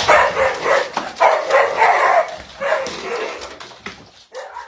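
A dog barking, a string of short barks in quick succession that grow quieter toward the end.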